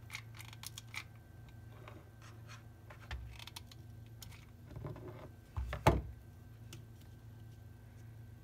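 Small clicks and taps of plastic lid wheels and popsicle-stick parts being handled on a tabletop, with one louder knock just before six seconds in, over a low steady hum.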